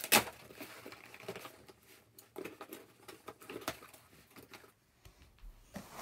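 Taped cardboard shipping box being pulled open by hand: a sharp snap right at the start as the flaps come apart, then cardboard flaps scraping, crackling and rustling, quieter for a moment shortly before the end.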